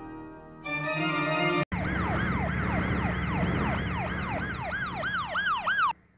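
An organ chord rings out and fades. After a sharp break about a second and a half in, a siren wails quickly up and down, about three sweeps a second, over a low steady hum, and cuts off suddenly near the end.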